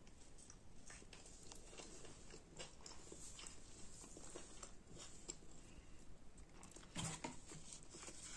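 Faint chewing of a soft, non-crispy stuffed pizza pocket, with scattered small mouth and handling clicks and a slightly louder cluster of them about seven seconds in.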